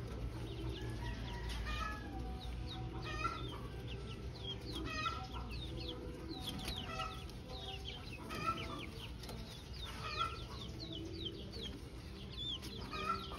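Chickens clucking in the background, with many short, high chirps repeating throughout over a low steady hum.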